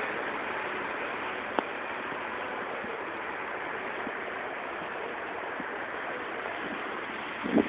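Steady hiss of road traffic and wind as a Mercedes-Benz O405N city bus approaches and draws up, with a single click about a second and a half in. A louder clatter comes near the end as the bus stops.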